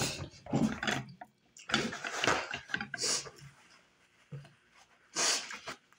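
A paper towel rustling and crinkling in the hands in the first half, then two short bursts of nose-blowing into it, about three seconds in and about five seconds in.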